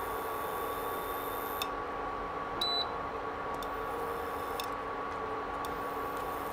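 Induction cooktop running under a wok of melting butter: a steady hiss with a thin, even whine, and a faint click about once a second.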